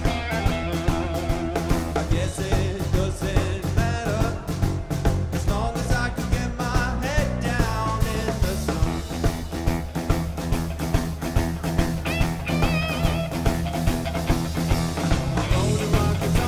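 A live rock band playing: electric guitar over bass guitar and a drum kit keeping a steady beat.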